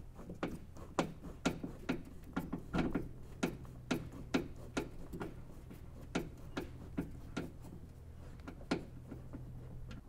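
Phillips screwdriver backing a screw out of the plastic trunk-lid trim, a run of irregular sharp clicks, roughly two a second, thinning out near the end.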